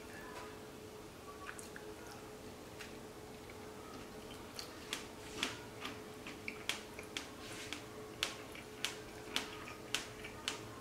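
Faint chewing of cornbread with ajvar: soft mouth clicks about twice a second, starting around four seconds in, over a faint steady hum.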